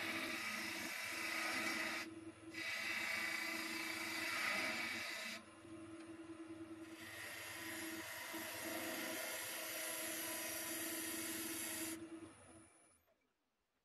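Wood lathe running with a steady motor hum while a turning tool cuts a spinning stone pine blank: hissing shaving noise in three long passes with short pauses between. The hum and cutting fade out near the end as the lathe stops.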